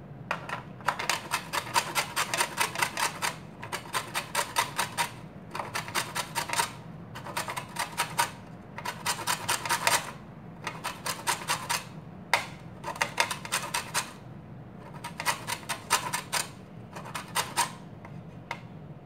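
Lemon peel being grated on a small flat stainless-steel hand grater, taking off the yellow zest and leaving the white pith. It comes as a quick, scratchy rasping in short runs of rapid strokes, about nine runs with brief pauses between them.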